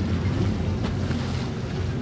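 Steady low rumble of wind on the microphone over shallow water lapping, with a few faint light splashes about a second in.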